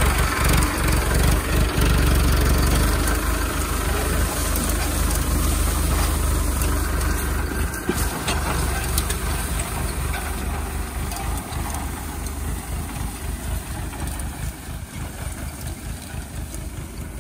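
Mahindra Arjun Ultra-1 555 DI tractor's four-cylinder diesel engine running steadily while pulling a rotary rake, a deep low rumble. It grows fainter through the second half as the tractor moves away.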